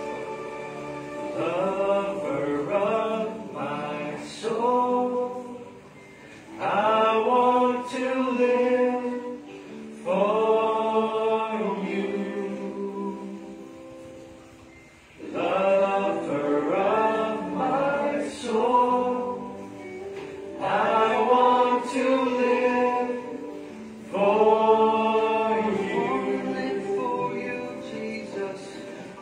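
A group of people singing a Christian worship song together, in sung phrases with short pauses between them.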